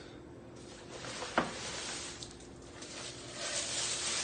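Tissue paper and a paper gift bag rustling and crinkling as a wrapped pot is unwrapped, with a single sharp knock about a second and a half in. The rustling grows louder near the end.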